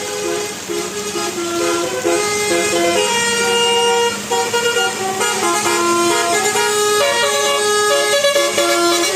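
Telolet Basuri musical multi-tone horn on a bus playing a tune: a run of held horn notes that step from one pitch to the next.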